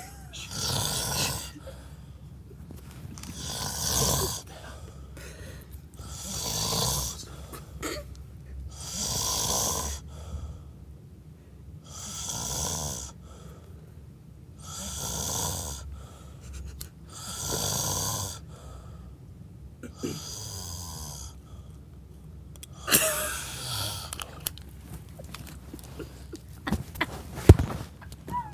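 A drunk man snoring in deep sleep, about nine long rasping snores, one every two and a half to three seconds. Near the end the rhythm breaks into less regular noises and a sharp click.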